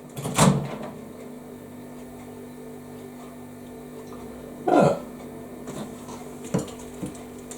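A steady low hum with two short voice sounds, one just after the start and one about five seconds in, then a few light knocks near the end, as of a plastic food tray being handled.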